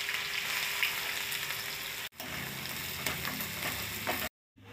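Chopped shallots, curry leaves and dried red chillies sizzling in hot oil with mustard seeds for a tempering. The sizzle cuts out briefly about two seconds in and stops just before the end.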